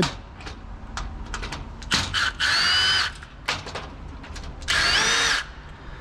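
Power drill-driver backing out the two screws that hold the screen door lock's outer cover: two short runs of motor whine, each rising quickly in pitch and then holding, with small clicks between them.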